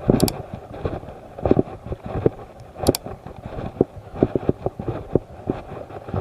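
A run of irregular soft knocks and rustles, with two sharp clicks: one just after the start and one about halfway through.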